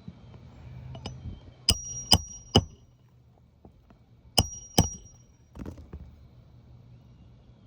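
Hammer striking roofing nails on a shingle roof: three sharp metallic strikes with a brief ring, then after a pause two more, with a few lighter taps.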